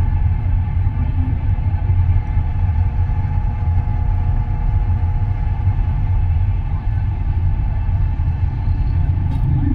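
Steady low rumble of a vehicle on the move.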